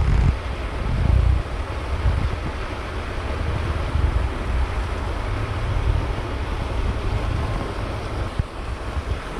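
Wind buffeting the microphone in uneven low gusts over a steady outdoor hiss.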